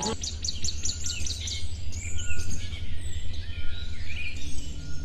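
Small birds chirping in scattered short calls over a low steady rumble.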